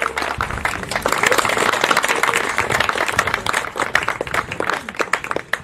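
A small crowd clapping, with dense overlapping claps that thin out and die away near the end.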